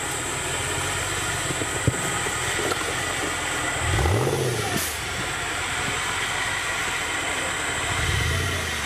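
Off-road 4x4 engine running, revving up and back down once about four seconds in and picking up again near the end, over a steady noisy background. A single sharp knock sounds about two seconds in.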